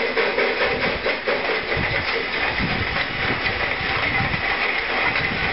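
Steam locomotive No. 60 running past under power: a continuous steam hiss with a run of low, rhythmic exhaust beats.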